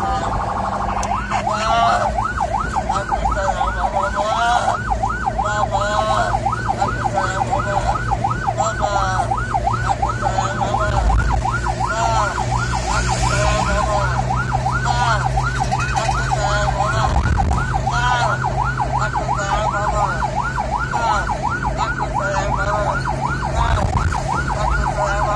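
Ambulance siren in a fast yelping pattern, several quick rising-and-falling sweeps a second, heard from inside the vehicle's cab over a steady low drone.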